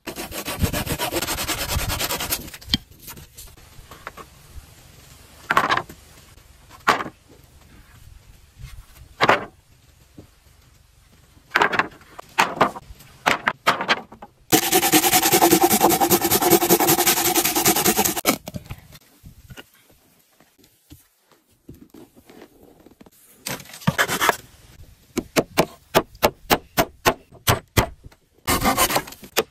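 Wood being worked by hand: separate scraping, rasping strokes with a longer steady spell in the middle, then a quick run of even strokes near the end.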